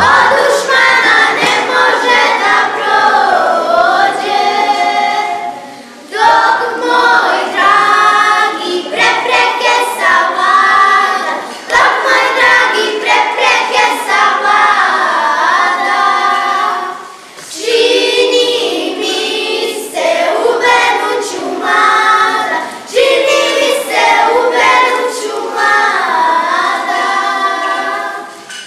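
A group of young girls singing a traditional folk song together without instruments. The song goes in phrases of about five or six seconds, with a short breath between each.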